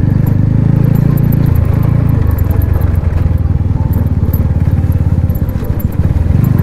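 Motorcycle engine running at low road speed, heard close from the bike itself: a steady, fast pulsing beat with faint ticks and rattles over it. The beat drops slightly in pitch about one and a half seconds in.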